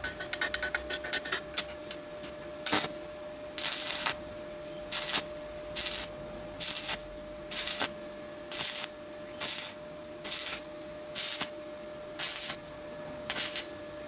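Stick-welding arc on thin steel exhaust pipe, lit in short crackling bursts about once a second with brief pauses between. It opens with a quick run of sputtering crackles as the electrode strikes the arc. A steady thin whine runs underneath.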